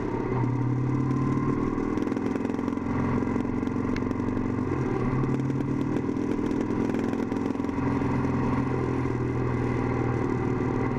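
Motorcycle engine running at road speed, heard from the handlebars with wind rush. The engine note shifts in pitch a few times as the speed changes.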